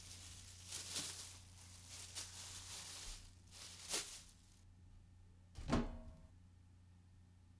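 Plastic bags rustling and crinkling as they are handled, then a single knock of a metal pan with a short ring a little past halfway.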